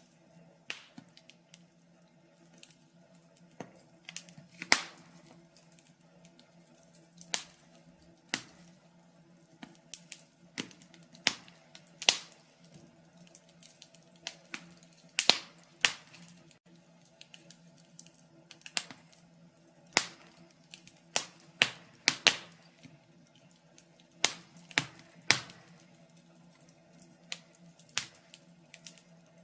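Wood fire crackling: sharp, irregular pops and snaps of burning logs, a few each second, over a faint low hum.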